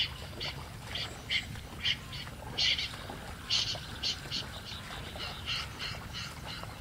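Common snipe calls: short, scratchy notes repeated about twice a second with uneven gaps, high in pitch over a low steady rumble.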